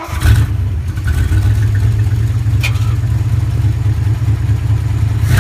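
Ford 292 V8 in a 1963 F-250 firing up on its freshly rebuilt Motorcraft 2100 two-barrel carburetor, heard from inside the cab: it catches right away and runs steadily. A single short click comes about two and a half seconds in.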